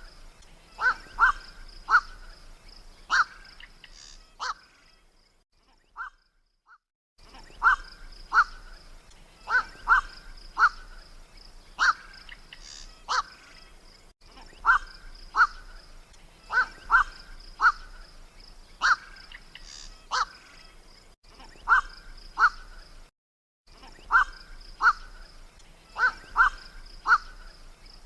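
Night heron (kowak-malam) calls played back as a hunting lure: short calls in quick clusters, repeating every few seconds, broken twice by brief silent gaps where the recording loops.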